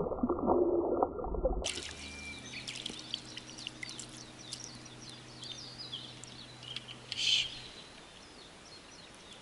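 Muffled water splashing with heavy thuds for the first second and a half, then, after an abrupt change, outdoor ambience of small birds chirping and water dripping and trickling, with a faint low hum that stops near the end.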